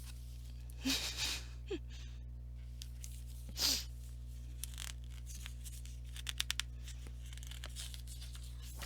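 Pages of a picture book being handled and turned: a few brief paper rustles about a second in and near the middle, then a quick run of about four light clicks, over a steady low hum.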